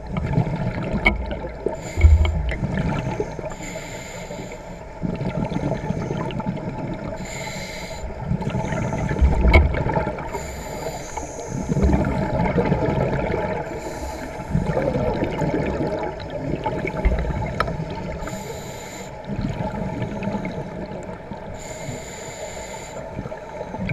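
Scuba regulator breathing heard underwater: bubbling exhalations about a second long every three to four seconds, over a steady underwater rumble and gurgle.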